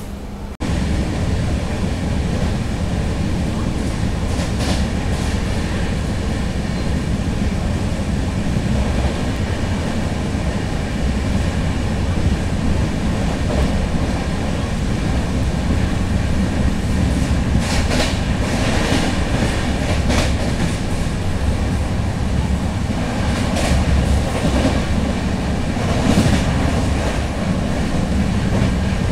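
Brindavan Express passenger train running at speed, a steady rumble of wheels on rail with clickety-clack over the joints and a few sharper clacks in the second half.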